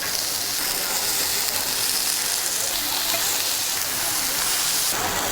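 Beef sizzling on a hot grill: a steady, dense hiss with fine crackles.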